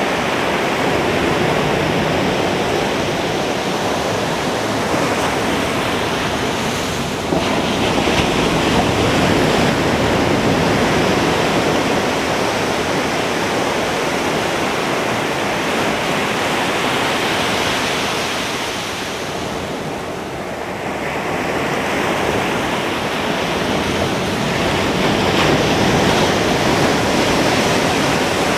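Ocean surf breaking on a beach: a continuous rushing wash of waves that eases off about two-thirds of the way through and then builds again.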